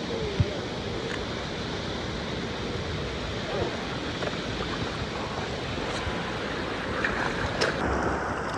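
Steady rushing noise, with a sharp click about half a second in and a few faint ticks near the end.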